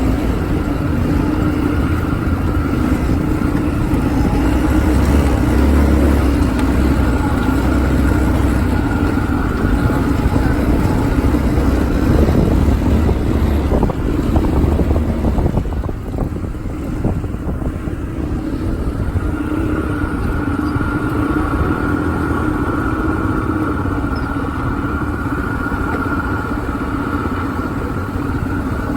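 ATV engine running steadily under way, with a rough low rumble, easing briefly about halfway through and then picking up again.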